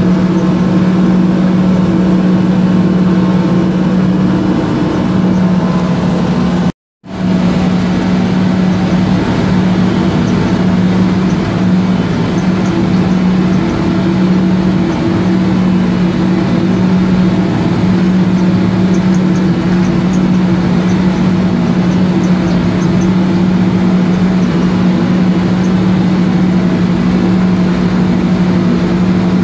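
Wabco 333FT motor scraper's Detroit Diesel 12V71T two-stroke V12 diesel engines heard from inside the cab, running steadily under load as the scraper travels, a loud even drone. The sound cuts out for an instant about seven seconds in.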